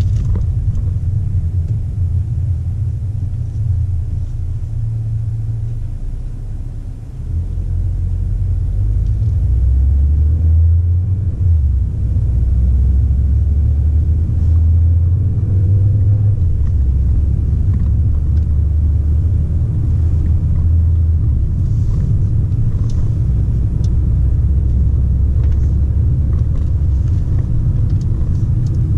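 Low rumble of road and engine noise inside the cabin of a moving Mercedes-Benz A200 (W177) with a 1.33-litre turbocharged four-cylinder. It dips briefly about seven seconds in, then grows louder and holds steady.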